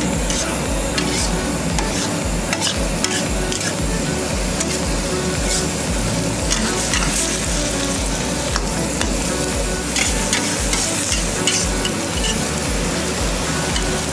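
A metal wok spatula scraping and clicking against a steel wok while a watery vegetable curry is stirred, over a steady sizzling and bubbling of the liquid. A low pulsing rumble runs underneath.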